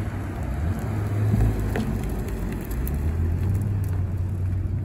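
Cadillac CTS sedan's engine running with a deep, steady low rumble as the car pulls away at low speed; the pitch drops a little about halfway through.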